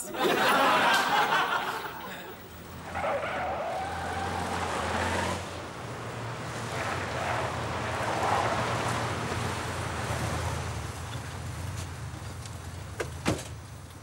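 Studio audience laughing for about two seconds, then a car engine running with a steady low hum. A single sharp knock comes near the end.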